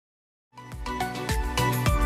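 About half a second of dead silence, then background music starts, fading in with a deep bass line and a steady beat.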